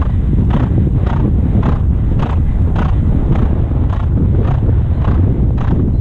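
Horse galloping on grass: an even beat of strides, about two a second, under heavy wind noise on the microphone.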